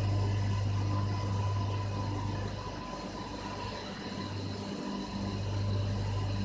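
Steady machinery drone of a thermal power station's turbine-generator units running: a deep hum with fainter steady whines above it over a constant rush of noise.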